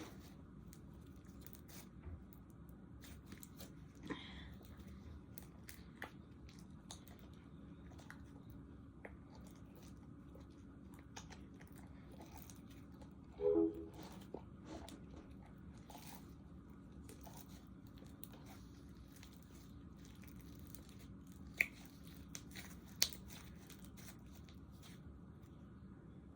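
Slime being handled and kneaded, making scattered small clicks and crackles over a low hum. A brief pitched squeak comes about halfway through, and two sharper clicks come near the end.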